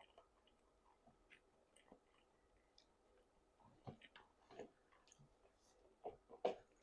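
Faint chewing close to the microphone: soft mouth clicks and smacks, with a few louder chews about four seconds in and again near the end.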